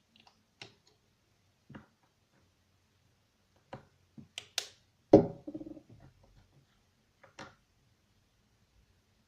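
Scattered light taps and knocks of objects being handled on a hard surface, with one loud clunk and a brief ring about five seconds in, like a container set down.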